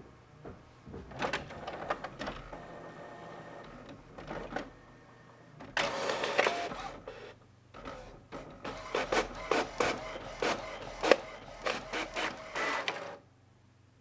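HP printer working through a print job: whirring mixed with mechanical clicks and clacks. There is a louder rushing stretch about six seconds in, then a quick run of sharp clicks that stops suddenly near the end.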